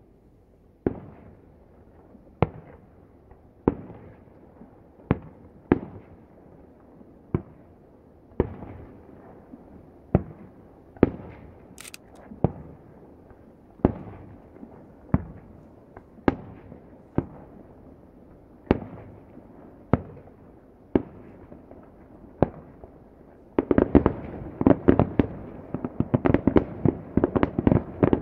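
Aerial firework shells bursting one after another, a sharp report about every second, heard from about a kilometre away. About 24 seconds in, the reports pile up into a dense, rapid barrage.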